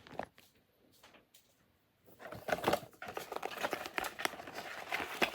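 Packaging being handled: a few faint clicks, then from about two seconds in a steady run of crinkling and rustling.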